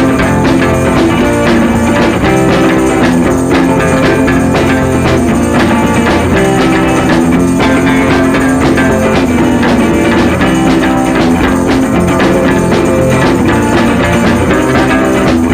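Background music: an upbeat rock-style track with guitar and drums and a steady beat.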